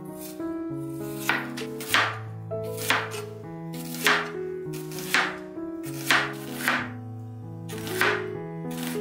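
Chef's knife slicing an onion into thin rings, each cut ending in a knock on the cutting board, about one stroke a second, irregularly spaced. Soft background music with held notes plays underneath.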